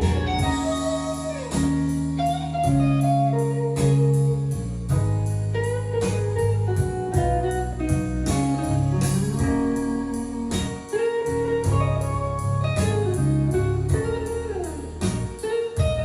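Guitar music with sliding notes and a steady beat, played back through a Marantz 1040 stereo amplifier and speakers.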